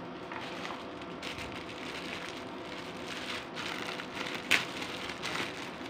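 Clear plastic bag crinkling and rustling as it is handled and pulled open, with one sharper crackle about four and a half seconds in.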